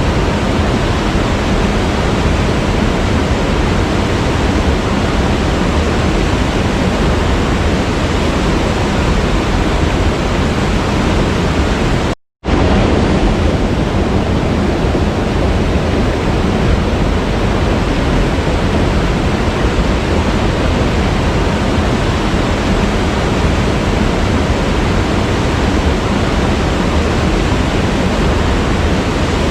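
Waterfall pouring steadily, a dense even rush of water with a heavy low rumble. The sound cuts out completely for a split second about twelve seconds in, then resumes unchanged.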